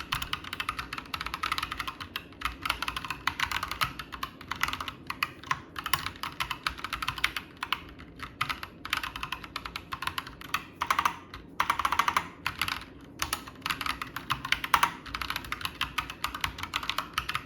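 Fast typing on a custom mechanical keyboard with Gazzew Boba U4T tactile switches: a dense run of keystroke clacks with a few brief pauses.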